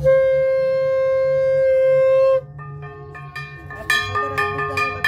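Conch shell (shankha) blown in worship: one long steady note that cuts off suddenly after about two and a half seconds. Then a hand bell rings in rapid repeated strokes.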